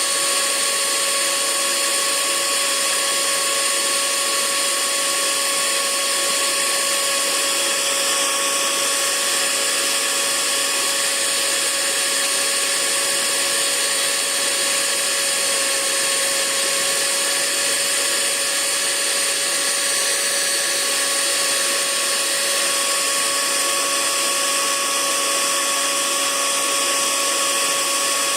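Hair dryer running steadily on one setting: an even rush of blown air with a constant motor whine in several fixed pitches.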